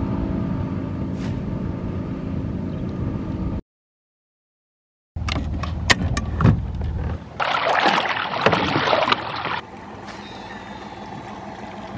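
A boat motor running steadily, cut off abruptly about a third of the way in. After a second and a half of dead silence come several clicks and knocks, a loud rushing noise lasting a couple of seconds, then a quieter even wash.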